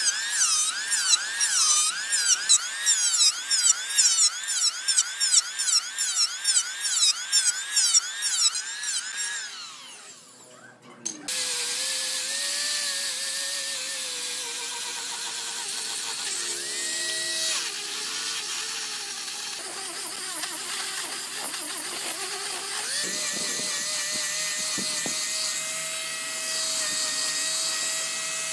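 A small handheld power tool whines for the first several seconds, its pitch dipping and recovering in a steady rhythm a little under twice a second as it is loaded against the wood, then winds down. After a short gap, an angle grinder with a sanding disc runs steadily, sanding the curved hardwood handrail piece.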